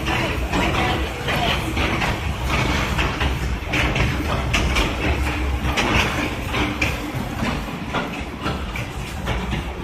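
Small mine train running on its rails, the cars rattling and clacking irregularly over the track joints above a steady low rumble.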